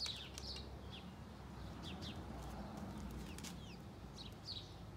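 Small birds chirping: short, high, downward-sliding chirps repeated many times over a faint steady low hum.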